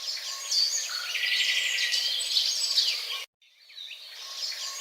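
Recorded nature ambience of birds chirping and calling over insect trilling, with all low sound cut away. It breaks off abruptly about three seconds in and starts over after a brief silence, like a looped sound effect.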